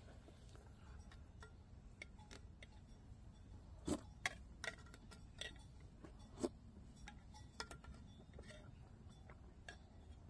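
Scattered light clicks and taps of a spoon against a food container while eating, a few louder knocks near the middle.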